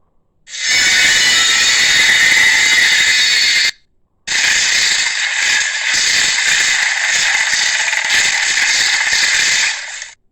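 Two long, harsh, screeching dinosaur roars from an edited monster sound effect, built from a cartoon Tyrannosaurus's roars to voice a Dimetrodon. The first lasts about three seconds; after a brief gap the second lasts about six seconds.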